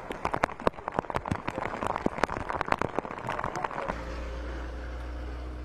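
Outdoor street sound with many irregular sharp clicks and taps over a noisy background. About four seconds in, it cuts to a steady low hum.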